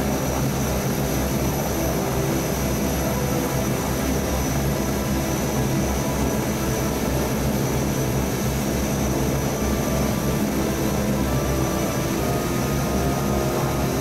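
De Havilland Canada DHC-6-300 Twin Otter's two turboprop engines and propellers running steadily while the aircraft taxis, heard from inside the cabin: a constant drone with a thin high whine over it.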